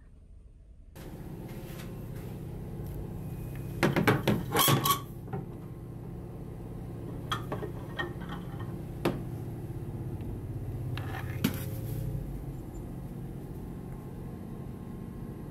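Wooden clothes hangers clacking against one another and a metal closet rail: a burst of clattering about four seconds in, then a few single knocks. Under it, a steady low hum of the ferry cabin.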